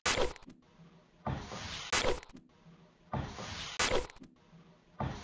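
Looped end-screen sound effect: a rising hiss about half a second long, then a sharp hit, repeating about every two seconds, three hits in all.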